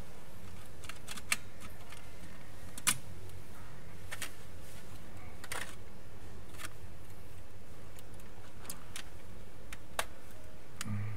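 Scattered sharp clicks and knocks of plastic parts as an opened PlayStation 4 Slim is handled and a board is lifted out, the loudest click about three seconds in, over a steady low hum.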